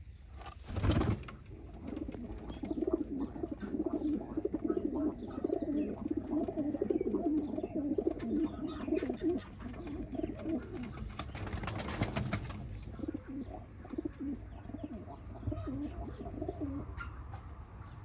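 Domestic pigeons cooing, a low rolling warble repeated over and over. Two brief noisy bursts come through, about a second in and again around eleven seconds.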